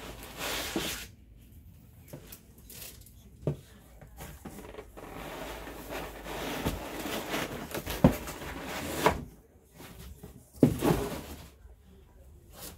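Foam packing inserts and a cloth-bagged subwoofer being lifted out of a cardboard box: rubbing and scraping of foam, cardboard and fabric, with several dull knocks.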